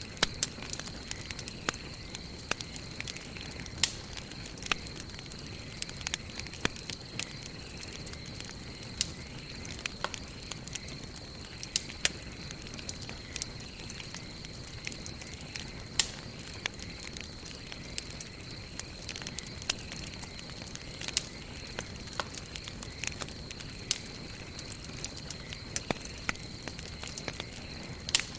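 Wood campfire burning and crackling: frequent small sharp snaps, with louder pops every second or two, over a soft steady hiss. A faint steady high tone sits underneath.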